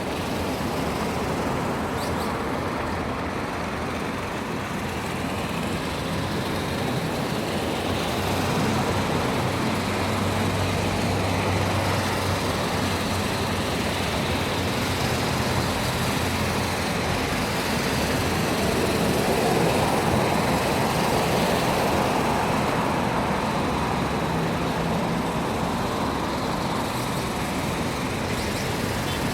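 Steady road traffic noise, vehicle engines and tyres, with a low hum, growing louder for a few seconds about two-thirds of the way through.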